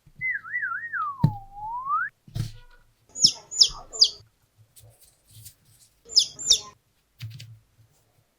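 Cartoon-style sound effects: a warbling whistle that dips low and slides back up, with a thump partway through, then three quick high chirps and, a couple of seconds later, two more, with a few soft thuds between.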